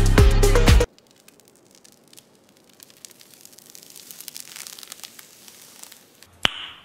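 Upbeat dance-style background music that cuts off abruptly about a second in. It is followed by faint rustling and small ticks, then one sharp click with a brief high ring near the end.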